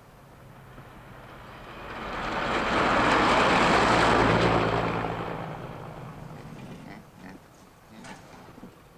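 A motor vehicle passing by: a rushing engine-and-road noise that swells up over about three seconds, peaks, then fades away.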